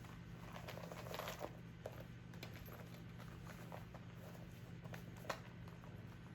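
Faint rustling and a few light taps as a small Louis Vuitton leather-goods piece is handled and drawn out of its fabric dust bag, over a steady low hum.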